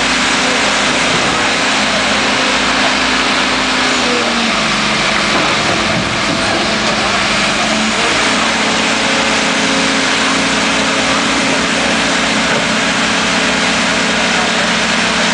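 Backhoe engine running steadily as the operator works the bucket, its pitch stepping up a little about a third of the way in and again about halfway, over a dense mechanical noise.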